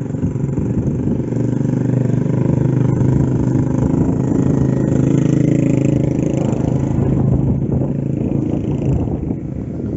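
A motor vehicle's engine running close by, a steady low hum that grows louder about a second in and eases off toward the end.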